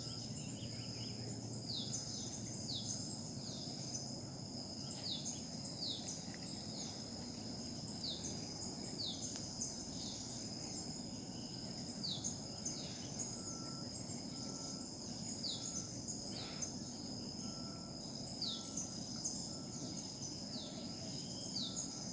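Tropical outdoor chorus: a steady high insect drone with repeated short, falling bird chirps over it. In the second half a faint series of evenly spaced short low pipes joins in, over a low steady background rumble.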